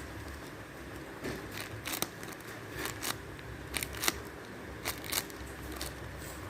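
Paper being handled and cut during crafting: soft rustling with about nine sharp, irregular snips and crinkles.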